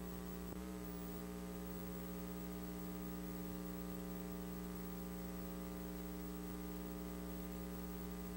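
Steady electrical mains hum, a low buzz with no other sound over it, with a brief glitch about half a second in.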